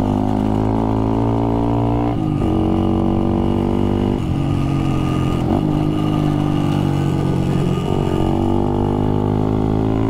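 1965 Yamaha YG5 Trail Master's 72cc two-stroke single-cylinder engine running under way. Its note breaks and settles at a new pitch about two seconds in, again about four seconds in, and a couple more times later, as the rider changes gear and eases the throttle.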